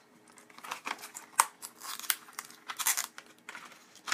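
Thin plastic film lid being peeled back from a small plastic snack tray, crackling and crinkling in irregular bursts, with one sharp click about a second and a half in.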